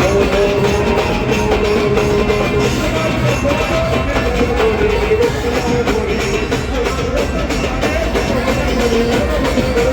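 Loud music with drums and a wavering melody line.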